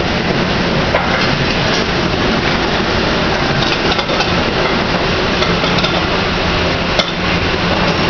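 Steady loud background noise at a buffet cooking station, with a low hum running under it and a few light clinks of dishes and utensils.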